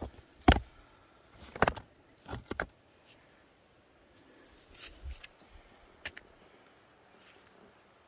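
Loose stones clinking and knocking together under footsteps on rocky scree: a handful of separate sharp clacks, the loudest about half a second in, with quieter stretches between.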